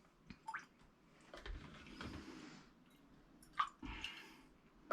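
Faint clicks and soft squishing of cooked food and containers being handled, with two short stretches of soft scraping or squelching noise.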